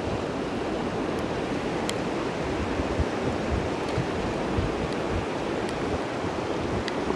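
Swollen wadi in flash flood, muddy water rushing fast in a steady wash of noise, with wind buffeting the microphone in uneven low gusts and a few faint ticks of raindrops hitting the camera.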